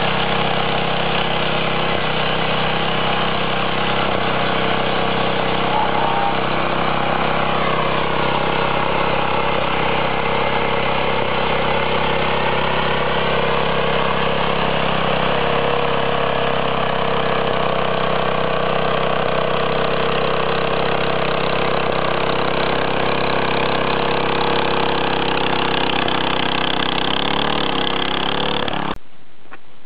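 Small air-cooled engine of a walk-behind power tiller running steadily under load as its rotating attachment cuts into soil. The engine speed dips and recovers now and then, and the sound cuts off suddenly near the end.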